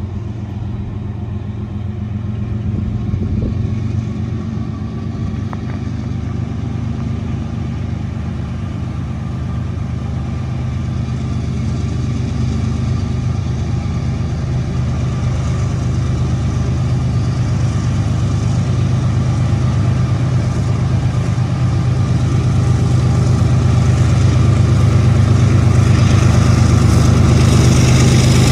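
Diesel locomotive engine running with a steady, deep drone that holds its pitch and grows gradually louder as it approaches, with more high rushing noise building near the end.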